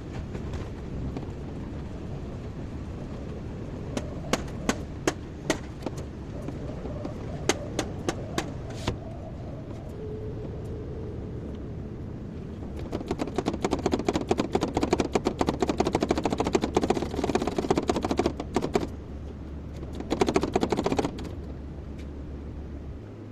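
Kobelco excavator running with a steady low engine hum. A series of sharp separate knocks comes a few seconds in, followed later by a long stretch of rapid, dense rattling clatter and then a shorter burst of it.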